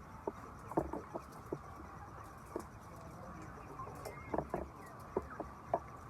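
Chickens clucking in a flock of laying hens: many short calls scattered irregularly over the steady background noise of the flock.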